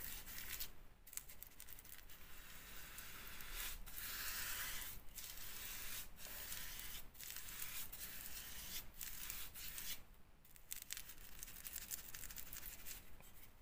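Paintbrush bristles scrubbing matt paint onto a textured plaster window reveal: a faint, scratchy brushing in strokes, broken by brief pauses, the longest about ten seconds in.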